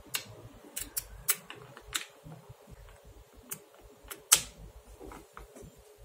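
Small magnetic balls clicking as they snap together in the hands: a string of irregular short clicks, the loudest about four seconds in.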